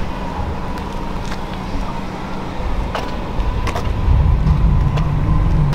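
Car running, a low engine and road rumble with a steady low hum that grows louder about four seconds in.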